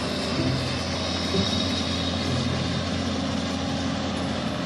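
Heavy diesel engine running steadily, from a John Deere excavator on the bed of a flatbed truck.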